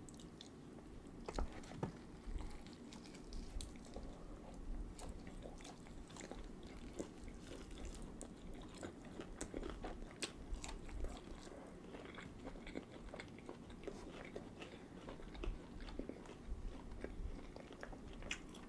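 Close-miked chewing and biting of food, with wet mouth clicks and small crunches at irregular intervals.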